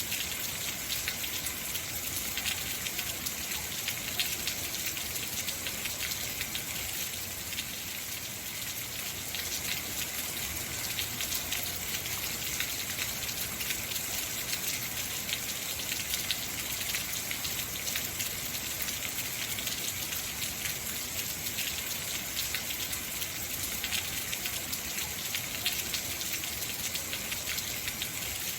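Heavy rain falling steadily: a dense, even hiss of countless drops striking surfaces.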